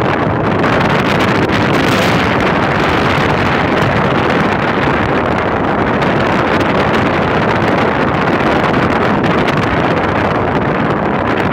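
Loud, steady rush of wind and road noise from a moving car, with wind buffeting the microphone held at the side window.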